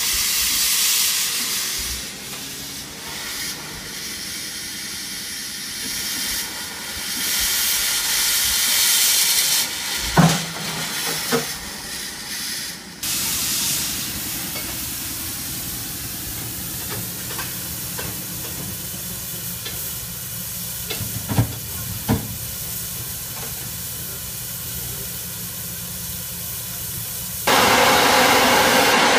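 Narrow-gauge steam locomotive hissing steam in uneven surges, with a few sharp metallic clunks. Near the end a loud, continuous blast of steam starts suddenly.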